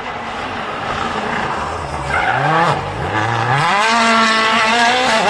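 Rally car engine at high revs, growing louder as it approaches. About two seconds in, the pitch dips and stutters as the car brakes and changes down for a corner. Then the revs climb and hold high as it accelerates out.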